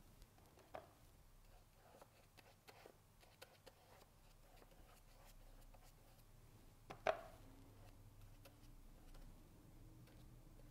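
Near silence with scattered faint taps and ticks from painting with a brush on paper and at a palette, and one sharper click about seven seconds in.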